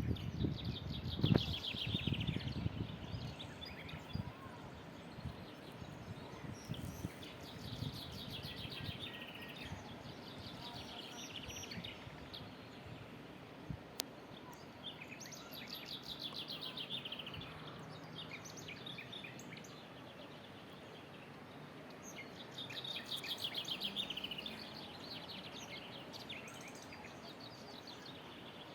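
A songbird singing short trilled phrases that fall in pitch, repeated every few seconds, over faint outdoor background noise.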